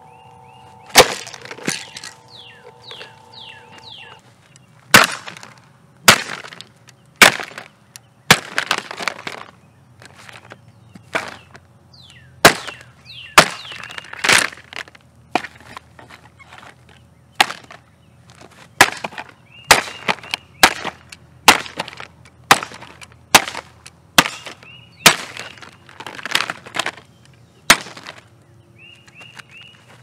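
A metal bar striking and breaking the plastic housing and motor of a Holmes 16-inch Breeze Blaster table fan: some two dozen sharp blows, about one a second, with plastic cracking.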